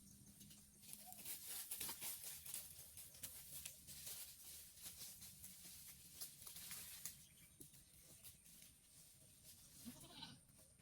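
Faint goat bleat near the end, with scattered light clicks and rustling throughout.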